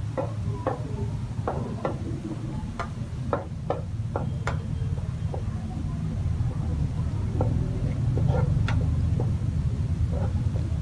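Metal spatula scraping and clinking against a steel wok while stir-frying chopped garlic, in irregular taps, over a steady low rumble.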